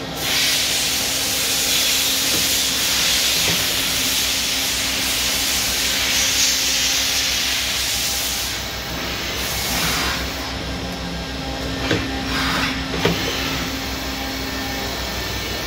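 Brother CNC vertical machining centre running a cut: a loud steady hiss over a steady machine hum. The hiss eases off about halfway through and comes back in short spells, with a couple of sharp clicks near the end.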